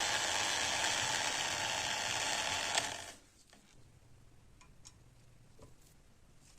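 Harsh, steady mechanical grinding of metal parts for about three seconds, stopping abruptly, followed by a few faint light clicks.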